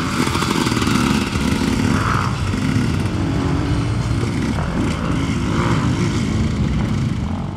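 Motocross dirt bike engine running hard as it is ridden along the track, its note rising and falling repeatedly with the throttle.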